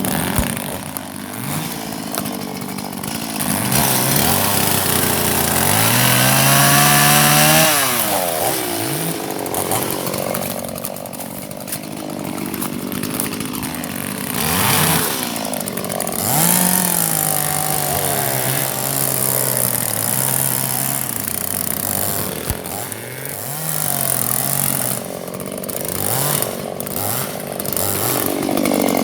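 Chainsaw cutting through dead ash wood, its engine revving up and dropping back again and again as the chain bites in and eases off.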